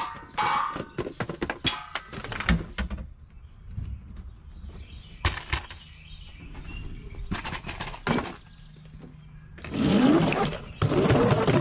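Backyard chain-reaction contraption running: a ball clattering into a row of metal pots and pans, then a few separate knocks of parts tipping and striking, and a louder rolling clatter near the end.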